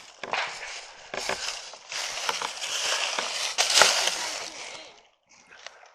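Footsteps crunching and rustling through dry leaves and grass, with scattered sharp crackles, dying away about five seconds in.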